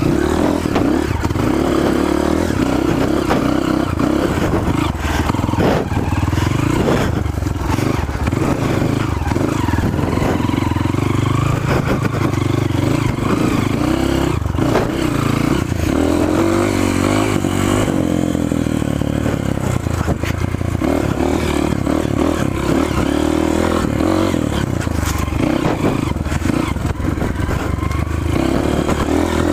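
Trail motorcycle engine running continuously as it rides, its pitch rising and falling with the throttle, with many short clattering knocks over rough ground.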